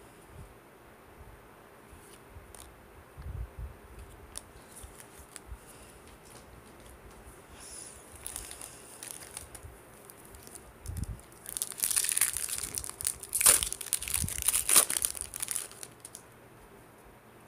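Plastic wrapper of a Topps baseball card pack crinkling and tearing open, loud and dense for about four seconds in the second half. Before it, only soft card-handling ticks and a couple of light knocks.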